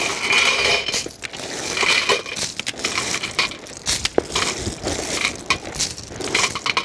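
Empty boiled clam shells clattering and crunching against one another in an aluminium pot as they are handled, an irregular run of many small clicks with a few sharper ones about four seconds in.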